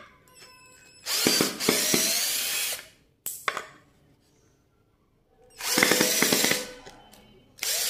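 Makita mini cordless screwdriver running in short bursts as it backs screws out of two screwed-together pieces of wood. There are two runs of a second or two each, with a third starting near the end and a few sharp clicks in between.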